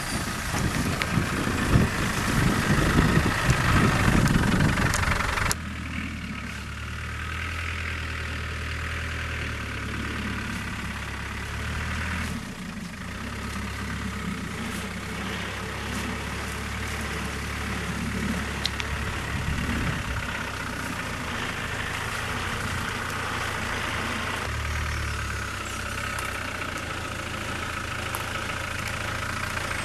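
Land Rover Discovery's 200Tdi 2.5-litre four-cylinder turbodiesel running at low revs as the vehicle crawls along, its revs shifting slightly a couple of times. The first five seconds hold a louder rough noise that stops abruptly.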